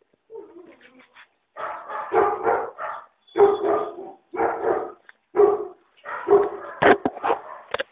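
Five-week-old puppies barking and yapping repeatedly as they play-fight, a run of short pitched calls one after another, with a few sharp knocks near the end.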